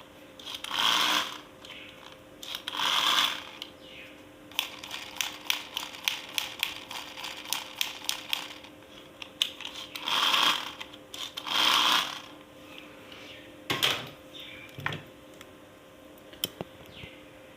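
Plastic toys and packaging handled up close: a quick run of sharp clicks and taps, with four rustling swishes about a second long and a knock near the end.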